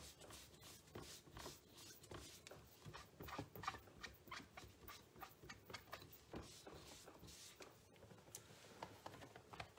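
Faint, irregular rubbing strokes and small clicks of a cloth wiping a stamp and the mat of a Stamparatus stamp-positioning tool clean, with light handling of its plates.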